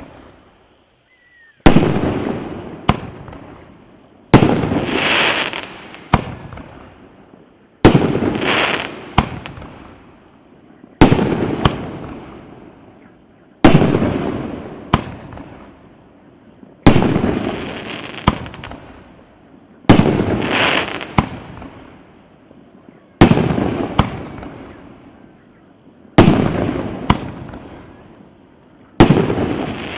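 Firework cake (Gromoverzhets C9008, 19 shots of 2-inch shells) firing one shot about every three seconds. Each shot is a sharp bang, a second crack about a second later, then a crackle that fades.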